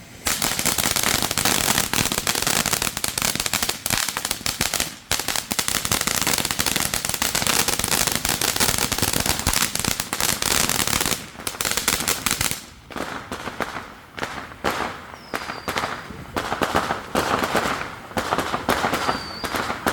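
Firecrackers going off in a dense, rapid, continuous crackle, then thinning into scattered separate pops after about twelve seconds.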